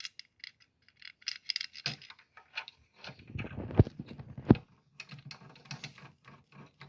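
Small metal screws clinking and clicking as they are handled and hand-threaded to bolt the throttle body back on. The clicks are irregular, with two sharper ones about halfway through.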